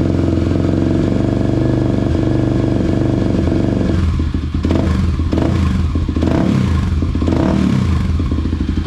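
Kawasaki KLX250's single-cylinder four-stroke engine running through a Radamel Racing aftermarket exhaust. It holds a steady idle, then from about four seconds in it is blipped about five times in quick throttle revs. The sound is described as deep and thunderous.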